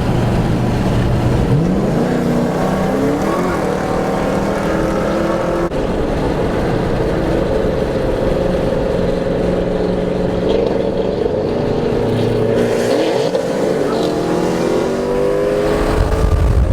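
Car engine under hard acceleration on a street race run: its pitch climbs, drops back at gear changes, and climbs again. It runs high and steady between the shifts.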